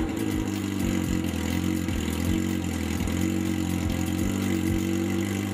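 Yamaha FZ1's inline-four engine idling steadily with the stock muffler removed, running straight out of the open header pipe with its catalytic converter freshly gutted, to blow any loose cat material out of the pipe.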